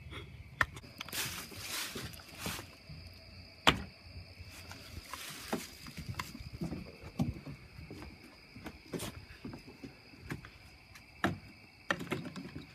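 Steady high chirring of night insects, with scattered sharp knocks and clicks and a few brief rustling rushes, the loudest knock a little under four seconds in.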